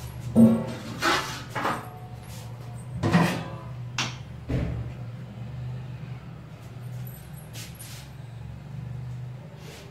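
Knocks and clatter of kitchen utensils and cupboards being handled, several sharp bangs in the first half, one with a bright metallic clink, over a steady low hum.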